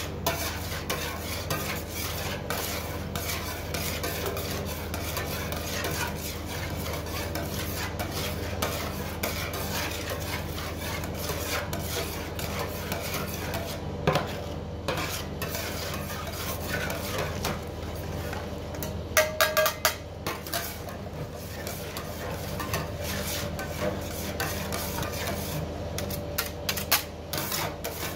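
Two metal spatulas scraping, chopping and tapping on the steel plate of a rolled ice cream cold pan, working the liquid cream base as it freezes. A steady low hum runs underneath, and a short metallic ring with a few louder clacks comes a little past the middle.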